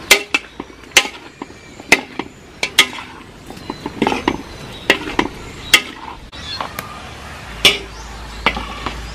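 Spatula stirring chicken and potato pieces in a large metal wok, knocking and scraping against the pan with a sharp clack roughly once a second.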